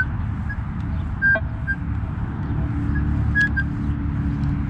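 Minelab E-Trac metal detector giving short target beeps as the coil is swept, mostly one high tone with a few lower tones mixed in, over a steady low rumble.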